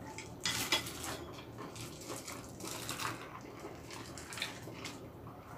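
Close-up slurping and sipping in several short, noisy pulls: grapefruit ade drawn up through a straw.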